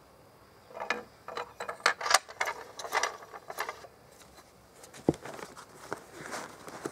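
Handling noise of a rifle and its moderator: a run of small clicks and rattles for about three seconds, then a single sharp knock about five seconds in.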